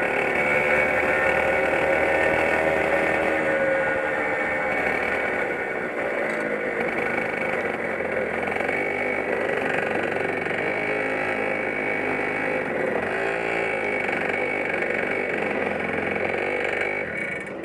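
100cc kart engine heard from the driver's seat as the kart slows off track: its pitch falls over the first few seconds as the revs drop, then it runs steadily at low revs with an even hum.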